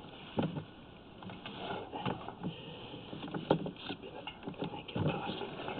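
Drain inspection camera being pulled back out through a sewer pipe: a handful of dull, irregular knocks as the camera head and push rod bump along the pipe, over a light scraping rustle.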